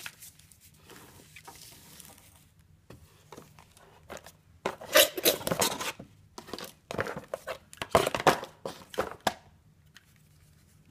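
Packaging being handled and unwrapped, crinkling and rustling in irregular bursts, loudest in two spells around the middle.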